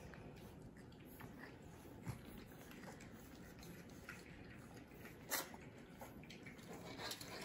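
French bulldog puppies moving about and playing with their toys: faint scattered taps and clicks over a steady low hiss, with one sharper click about five seconds in.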